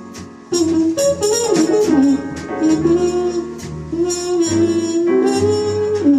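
Live small-group jazz: a horn plays a held, bending melody line over bass and drums, with repeated cymbal strokes.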